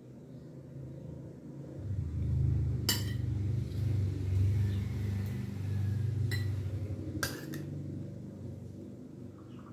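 Metal fork clinking against a plate a few times while eating, over a low droning hum that swells and then fades over several seconds.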